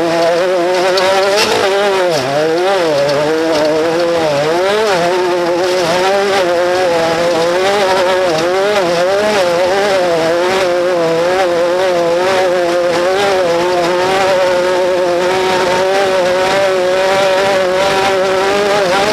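Off-road race vehicle's engine running hard at high revs. Its pitch rises and falls repeatedly over the first five seconds as the throttle changes, then holds fairly steady.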